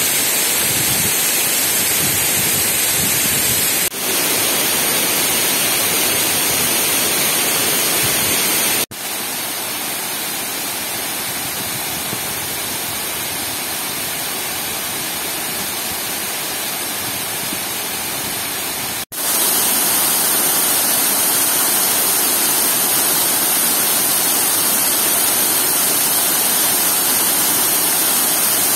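Water pouring over a sloped masonry dam spillway and crashing into the pool below: a steady, loud rush of falling water. It breaks off for an instant three times, and the middle stretch is a little quieter.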